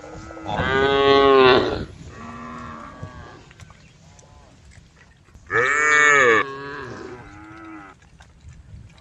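Cattle in a herd mooing. Two loud, long moos, one about a second in and another past the middle, with fainter moos from other cows between and after them.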